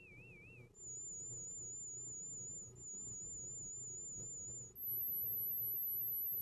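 Hearing-test warble tones, each a single pure tone that wavers slightly in pitch. A tone at 2,500 Hz stops just under a second in. A higher tone at 7,000 Hz follows, with a brief break in the middle. A very high tone at 12,000 Hz starts about five seconds in.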